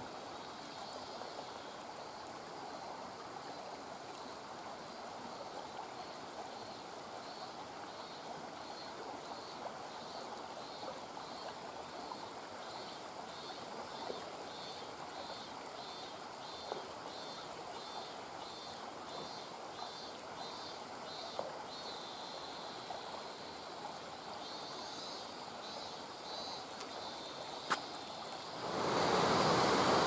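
Steady rushing of a flowing stream, with a high chirp pulsing about twice a second through the middle and a single sharp click near the end.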